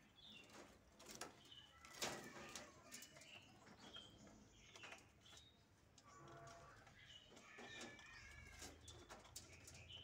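A green parakeet gives short high chirps and a warbling chatter, mixed with sharp clicks and taps, loudest about two seconds in.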